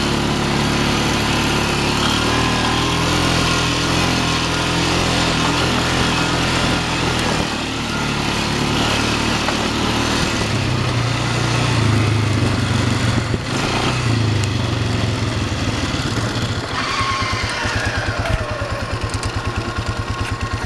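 Single-cylinder ATV engine running while the quad rides along a dirt trail, pulling harder around the middle, then dropping to a steady pulsing idle for the last few seconds as the machine comes to a stop.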